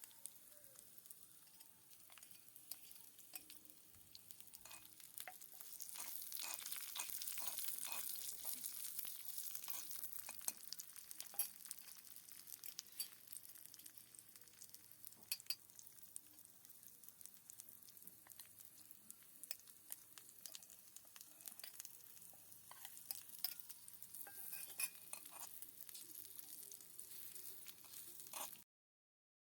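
Food sizzling in a small miniature-kitchen pan while a utensil stirs it with many light clicks and scrapes. The sizzle swells about six seconds in, eases off after a few seconds, and cuts off suddenly near the end.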